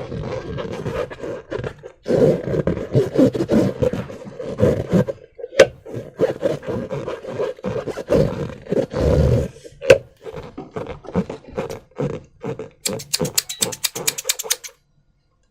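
Hands working slime-filled rubber balloons and slime: irregular scraping, rubbing and squishing with sharp clicks, ending in a rapid run of about ten clicks a second.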